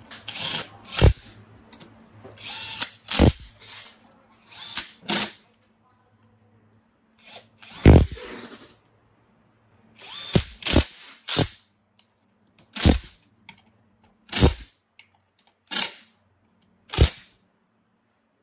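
A handheld power tool run in about a dozen short, unevenly spaced bursts, each starting sharply and lasting well under a second; the loudest comes about 8 s in.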